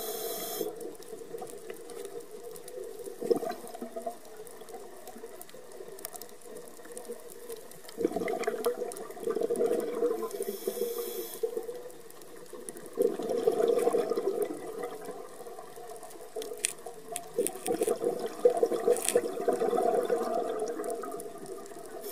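Scuba regulator breathing heard underwater: several long bubbling exhales, with one brief hissing inhale about halfway through.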